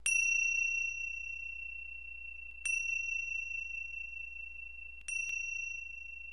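A high, bright chime struck three times, about two and a half seconds apart, with the last strike doubled. Each strike rings on and fades slowly. A faint low hum runs underneath.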